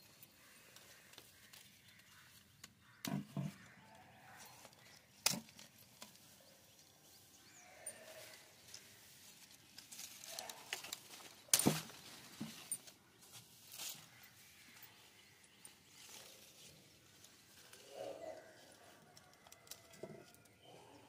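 Steel scissors snipping guava stems: a few sharp snips several seconds apart, the loudest about halfway through, over a faint outdoor background.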